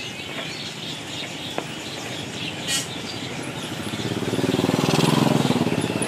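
Caged birds chirping in an outdoor bird market, while a motorcycle engine draws near and grows louder from about four seconds in, loudest around the five-second mark.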